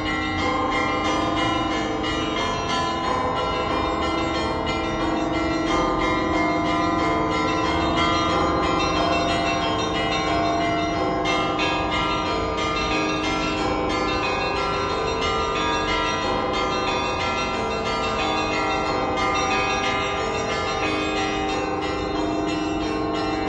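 The bells of St. Isaac's Cathedral ringing for the evening service: several bells sound together in a continuous, overlapping peal at a steady level.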